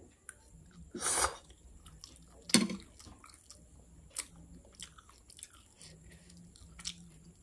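A person chewing a mouthful of spicy instant noodles, with soft scattered clicks of the mouth. Two louder short hissing sounds come about one second and two and a half seconds in.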